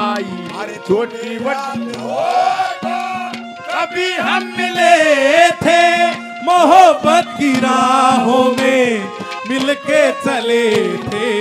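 Live Haryanvi ragni: a male singer sings long, wavering, ornamented notes over hand-drum beats and a steady held accompanying note.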